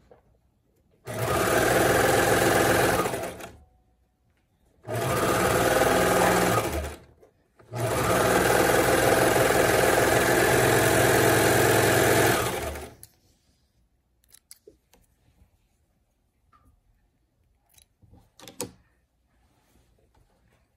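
A Baby Lock Imagine serger (overlock machine) stitching a seam in three steady runs: a short run about a second in, another around five seconds, then a longer run of about five seconds. It then stops, leaving only a few faint clicks.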